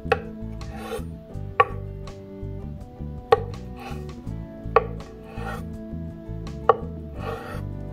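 A chef's knife slicing peeled hard-boiled eggs on a wooden cutting board: five sharp knocks as the blade meets the board, about every one and a half to two seconds, with softer scraping between them.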